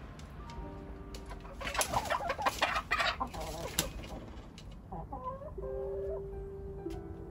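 Chickens clucking, with a loud burst of harsh squawking from about one and a half to four seconds in and a shorter call near five seconds. Background music with held notes plays throughout.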